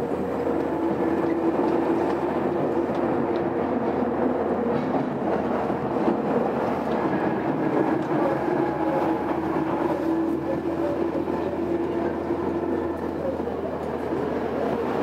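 Tobu 20000 series commuter train heard from inside the car while running: a continuous rumble of wheels on rail with a steady hum from the drive equipment that fades out near the end.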